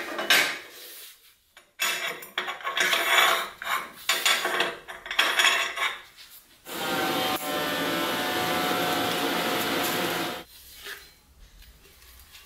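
Steel flat bars and square tubes clanking, knocking and scraping as they are set down and slid on a steel welding table. About seven seconds in, a steady machine noise starts, runs for about three and a half seconds and cuts off.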